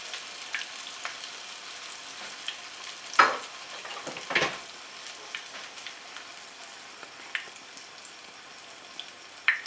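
Nems (spring rolls) sizzling as they shallow-fry in hot oil in a nonstick frying pan: a steady crackle with a few sharper pops, the loudest about three seconds in.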